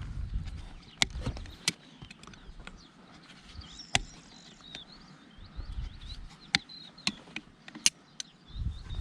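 Sharp clicks and knocks at irregular intervals, about six in all, with small birds chirping faintly in the background.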